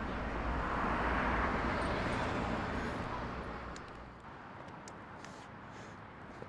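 Traffic noise from a passing vehicle, swelling and then fading away over about three seconds, followed by quieter city ambience with a few faint clicks.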